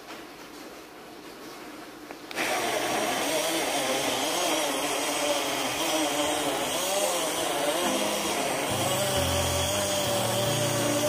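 SunRise portable personal blender switched on about two seconds in, its motor running and chopping dragon fruit chunks with liquid milk into juice. The steady whine wavers at first while the chunks are broken up, then settles to an even pitch as the mix turns smooth.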